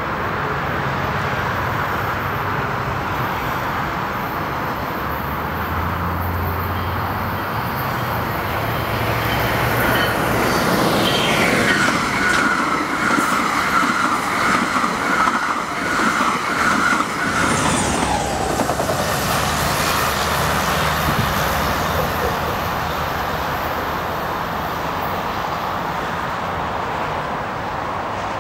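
AMT commuter train hauled by an ALP-45DP dual-mode locomotive passing a station platform at speed without stopping. Over a steady rush the sound swells about ten seconds in to a loud, uneven run of wheels on rail with a ringing whine, which drops in pitch as the train goes by. After about eight seconds it settles back to the steady rush.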